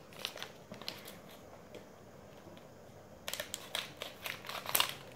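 Scissors snipping into a small plastic candy packet, with the wrapper crinkling in the hand: a few scattered snips at first, then a quicker run of sharp crackly snips and rustles from about three seconds in.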